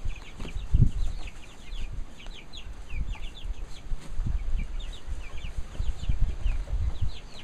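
A flock of young chicks, about six to nine weeks old, peeping: many short, high cheeps overlapping throughout. Low thumps and bumps underneath, the loudest about a second in.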